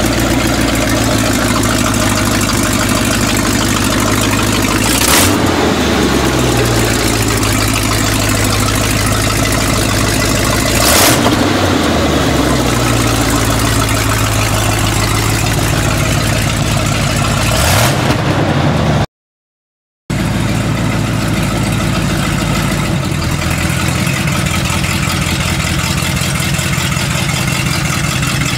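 A 402 cubic-inch big-block Chevrolet V8 with dual exhaust idles steadily. It is blipped three times, about six seconds apart, each rev rising and falling back to idle. After the third rev the sound cuts out for about a second, then the idle carries on steadily.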